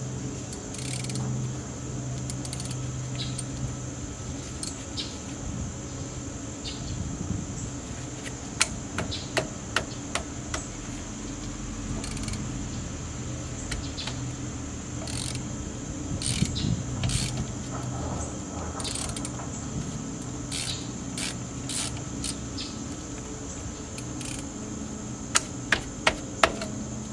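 Scattered sharp metallic clicks and taps of hand tools at work on the vehicle's suspension, including a run of four quick clicks near the end, over a steady high-pitched background and a low hum.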